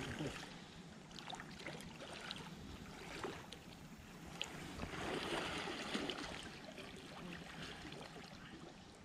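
Shallow gravel-bottomed river running, a soft, even wash of water with small splashes and ticks scattered through it, swelling briefly around the middle.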